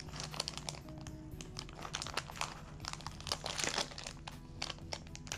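Packaging crinkling and rustling in short crackles as it is handled, over soft, steady background music.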